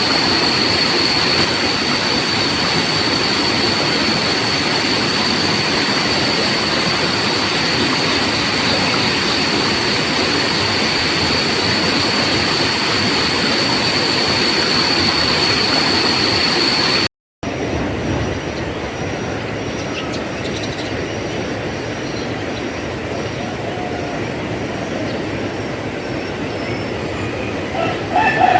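Steady rushing of flowing water under a continuous high insect drone. After a brief dropout about two-thirds of the way through, a quieter water rush follows with faint, broken high insect calls, and a short bird-like call comes near the end.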